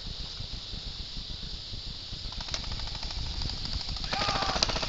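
Airsoft guns firing rapid full-auto bursts, a fast even rattle of clicks starting a little over two seconds in and loudest near the end, over a steady high hiss and low rumble.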